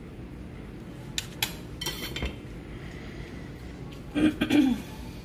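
Kitchen handling noise while a frosted cake tier on a cardboard cake board is set onto another tier: a few light clicks and knocks, then a louder, longer clatter about four seconds in.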